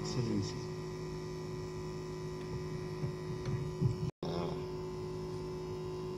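Steady electrical mains hum with several fixed tones, a low buzz plus higher whines. It breaks off for an instant about four seconds in.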